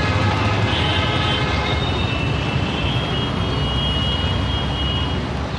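Road traffic: motor vehicle engines running steadily with a low hum. A thin high whine holds for a few seconds in the middle.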